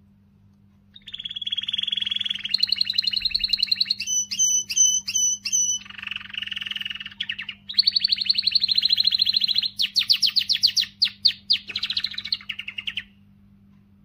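Domestic canary singing a long song of rapid trills, switching to a new phrase every second or two, including a slower run of separate notes in the middle. It starts about a second in and stops about a second before the end.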